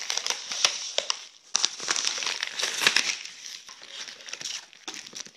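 Padded bubble mailer crinkling and rustling as hands work it open and slide a cardboard box out, with a brief lull about a second and a half in.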